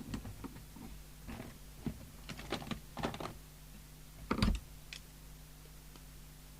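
Small plastic clicks and taps from a UK mains plug's cover being fitted back on and handled, ending in a louder thump about four and a half seconds in and one more click after it.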